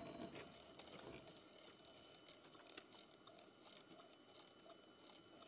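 Near silence: faint recording hiss with a few soft ticks.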